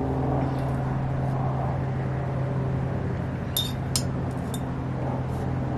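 A few light clinks of a metal tool against the glass jar of hot hide glue, about three and a half to four seconds in, over a steady low hum.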